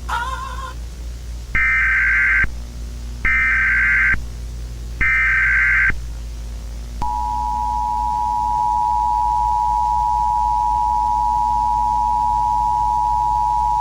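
Emergency Alert System tones. Three short bursts of the screeching digital SAME header data come about a second apart, then the steady two-tone attention signal, a dual tone near 853 and 960 Hz, starts about seven seconds in and holds. A low steady hum runs underneath.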